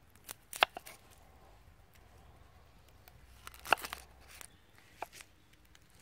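A knife cutting an onion on a wooden board and the papery onion skin being peeled off: scattered sharp clicks and crackles, loudest just over half a second in and again just under four seconds in.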